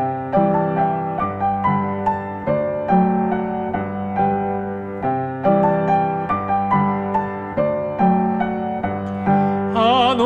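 Piano playing an instrumental interlude of a Japanese art song, a steady flow of notes; near the end a singing voice comes in with vibrato.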